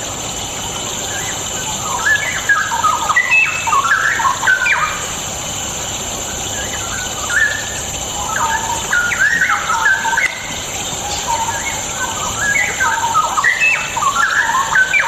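Straw-headed bulbul (cucak rowo) singing in three bursts of rich, quick warbling phrases with notes jumping up and down, over a steady high hiss.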